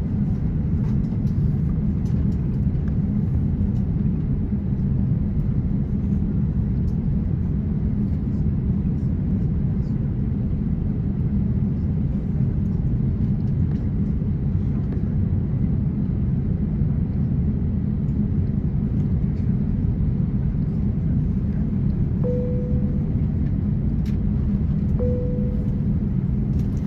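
Steady low cabin rumble of an Airbus A350-900 taxiing, its Rolls-Royce Trent XWB engines at low taxi power. Two short, mid-pitched tones sound about three seconds apart near the end.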